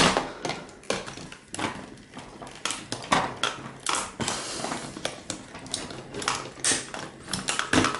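Screwdriver prying and scraping at a plastic pin connector strip on a circuit board, making a run of irregular clicks and scrapes as the part is worked loose.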